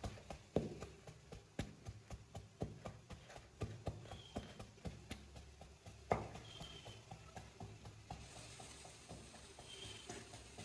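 Puttu flour being mixed with hot water in a plastic bowl with a steel cup: a string of soft, irregular knocks and scrapes, several a second, with one sharper knock about six seconds in.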